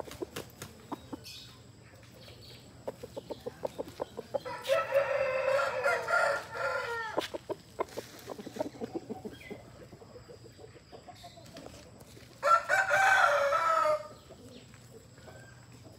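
Aseel rooster giving a quick run of clucks that grow louder, then crowing one long crow with a falling end, followed by more clucks. Near the end comes a second, shorter and louder crow.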